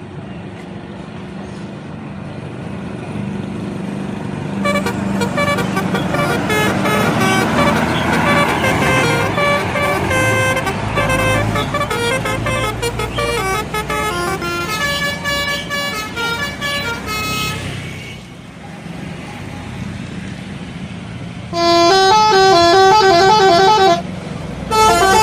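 Indonesian bus telolet horn, a multi-trumpet air horn, playing a stepping melody of several notes, with the bus's diesel engine running underneath. A long tune runs from about five seconds in to about eighteen, then two short, louder bursts of tune near the end.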